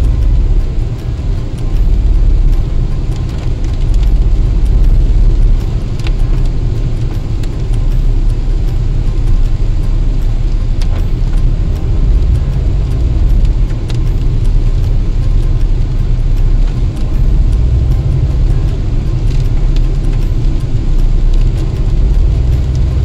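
Steady low rumble of a car driving on a wet road, heard from inside the cabin: engine and tyre noise, with a few faint ticks.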